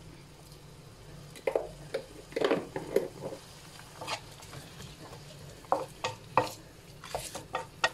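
Wooden spatula stirring chopped vegetables in a wok, with irregular scraping and knocking strokes against the pan.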